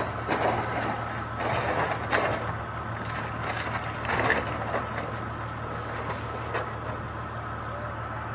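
A heavy machine's engine running steadily, with irregular knocks and cracks over it during the first few seconds.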